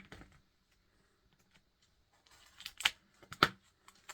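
Small sharp clicks and light scraping of hand-handled parts inside an opened 2012 MacBook Air, as a stuck part is worked loose from its slot: one click at the start, a pause, then faint scraping and two sharp clicks about half a second apart.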